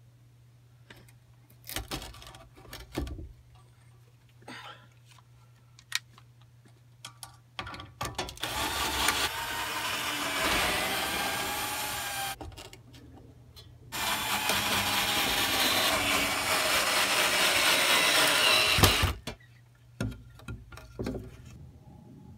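Cordless drill running in two long runs of about four and five seconds, its pitch wavering, after a few scattered knocks and clicks of handling.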